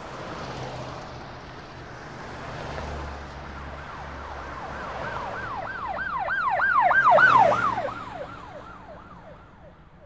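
Emergency-vehicle siren in a fast rising-and-falling yelp, about three cycles a second, growing loud around seven seconds in and then fading away, over a steady haze of street traffic.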